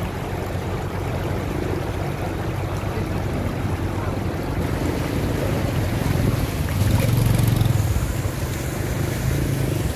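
Floodwater rushing across a road, with a small motorbike engine running underneath; the engine gets louder about two-thirds of the way in as a Honda step-through motorbike rides through the water.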